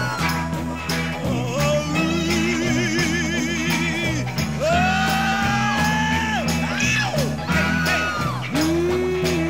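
Blues band recording: a steady bass and rhythm pattern under long lead notes that slide up and down and waver widely, with singing.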